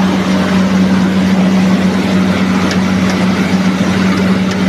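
NG 25D combined rice milling machine running steadily: a loud, even machine noise with a strong steady hum underneath.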